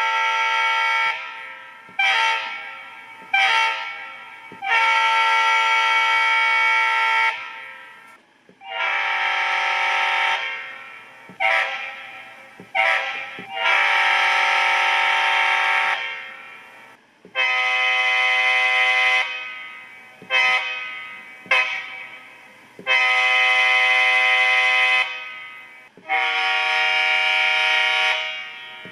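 Simulated diesel locomotive air horn from a TCS WOWSound V4 model-train sound decoder, several notes sounding together. It is sounded in the same pattern again and again: a long blast, two short blasts, then another long blast.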